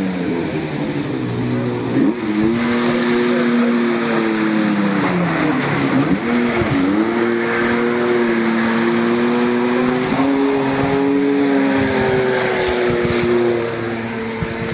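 Snowmobile engine running hard, its pitch dipping near the start and again about six seconds in, then climbing back as it revs up.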